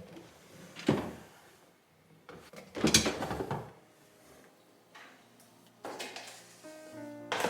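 Plastic fridge organizer bins being handled and slid into place: a knock about a second in, then a longer sliding scrape around three seconds in. Soft music comes in near the end.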